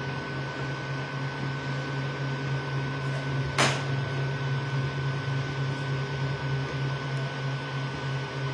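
Creality Ender 3 V2 3D printer running a print: a steady mechanical hum from its motors and fans with a thin steady whine above it. One sharp click stands out about three and a half seconds in.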